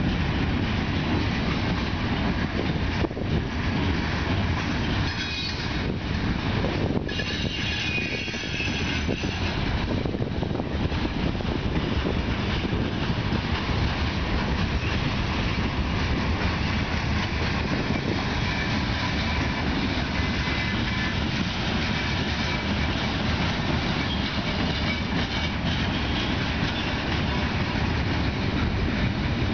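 Loaded freight cars of a manifest freight train rolling past at speed, a steady rumble of steel wheels on the rails. A faint high-pitched wheel squeal comes in here and there.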